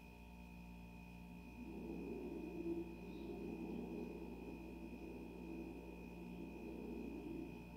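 Faint room tone: a steady hum made of a few held tones, with a fainter uneven low murmur joining about two seconds in.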